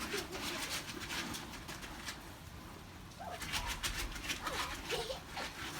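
Shoes scraping and crunching over a layer of hailstones as a child slides across them, in a rapid run of gritty clicks. It pauses briefly about two seconds in, then resumes, with a few faint short cooing sounds.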